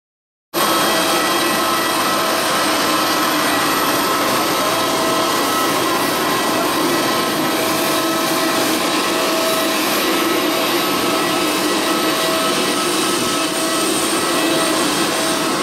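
Steady high-pitched turbine whine over a constant rush of air from a parked Airbus A319 jet on the apron.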